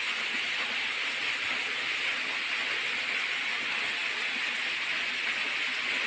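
Steady, even hiss of rushing water from a waterfall.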